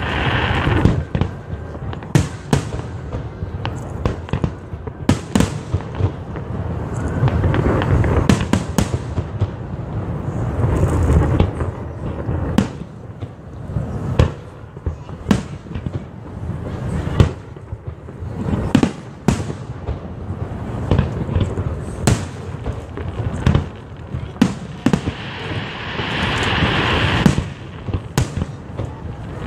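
Aerial fireworks shells bursting in quick succession: many sharp bangs, several a second, with low rolling booms between them.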